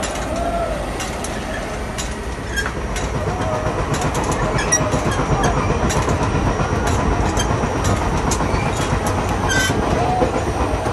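Train running along the rails: a steady rumble with the wheels clacking over the rail joints, a little louder from about two and a half seconds in.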